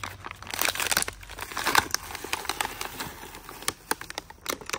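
A toy gun's plastic blister pack and cardboard backing card being torn open by hand: plastic crinkling and card ripping, with many irregular sharp crackles, loudest in the first two seconds.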